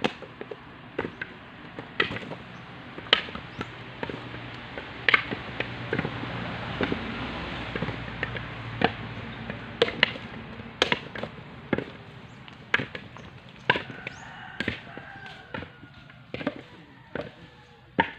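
Irregular hard knocks and chops of coconuts being worked, one every second or so, some much louder than others.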